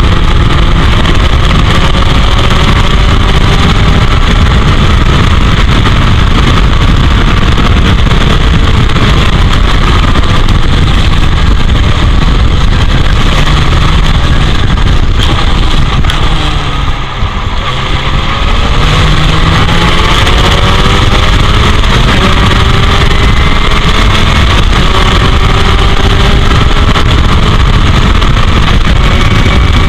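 1984 Royale S2 sports racer's engine running hard on track, its pitch climbing again and again through the gears, under heavy wind noise on the camera microphone. About seventeen seconds in it drops away briefly, then climbs again.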